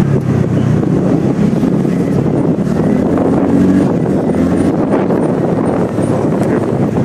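TVS Ntorq scooter's engine running while riding, with wind rushing over the microphone. The engine note climbs a little around the middle.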